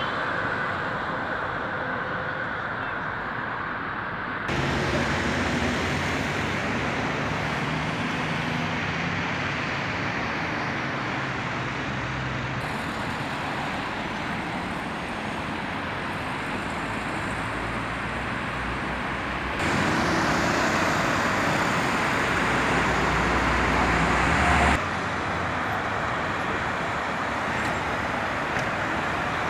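Road traffic noise: cars passing on a busy multi-lane city road, a steady wash of engine and tyre noise. It changes abruptly in level several times as the footage cuts between spots.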